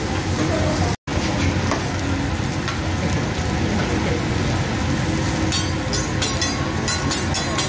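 Beef steaks sizzling on a hot teppanyaki griddle with a steady hiss, which cuts out briefly about a second in. Near the end comes a quick run of metal clinks from the steel spatula and fork.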